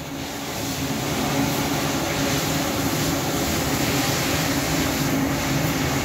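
A silicon washing machine running steadily, with a low motor hum under an even rushing noise.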